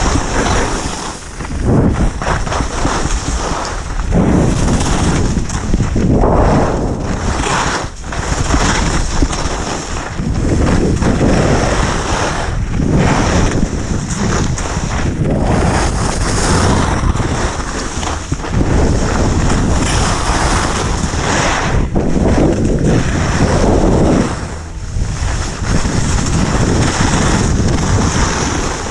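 Wind buffeting the microphone and skis hissing and scraping over packed snow during a downhill ski run. The noise swells and eases every couple of seconds.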